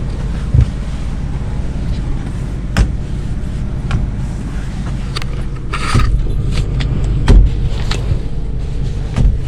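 A padded wooden headboard being handled and bumped into place, giving a few scattered knocks, the loudest about two-thirds of the way through, over a steady low hum.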